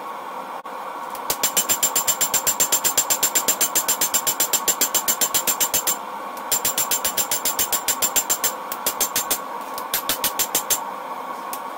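Hand hammer beating red-hot leaf-spring steel on an anvil, sped up fourfold so the ringing blows come about six a second, in four runs with short pauses between. A steady hiss lies under it throughout.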